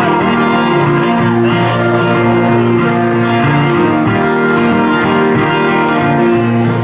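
Two acoustic guitars strummed together, playing a steady chord accompaniment.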